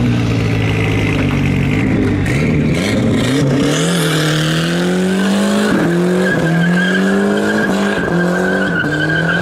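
Ford Ranger pickup doing a burnout as it pulls away. Its engine revs up and drops back over and over, about once a second. From about halfway through, the spinning rear tyres add a steady high squeal.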